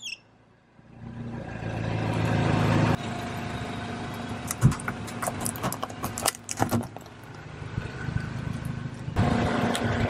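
A car's engine running at low speed as its tyre creeps forward, then a rainbow-shaped block of sidewalk chalk crushed under the tyre, cracking and crumbling in a run of sharp crunches between about four and seven seconds in.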